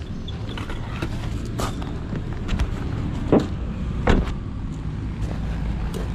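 Two dull thumps about two-thirds of a second apart as a car door is shut, over a steady low rumble of handling and wind noise on the body-worn camera.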